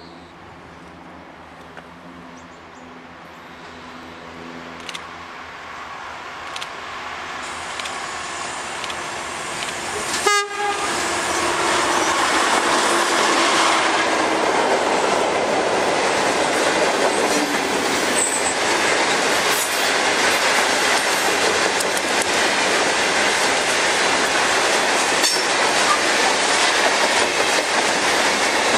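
Diesel freight locomotive approaching, its engine hum growing louder, then passing about ten seconds in. After it comes a long train of loaded hopper wagons rolling by at close range, wheels clattering steadily over the rail joints.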